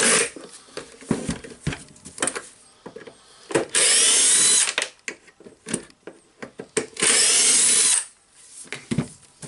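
Cordless drill-driver run twice, about a second each time, with a rising whine, backing out the screws that hold the cylinder in a Hilti TE706 demolition hammer. Short knocks and clicks of metal parts being handled come between the runs.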